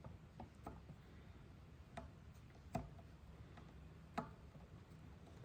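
A few light, scattered clicks and taps of a tool on the bicycle's rear derailleur while its low limit screw is adjusted, two of them sharper, in the middle and about four seconds in.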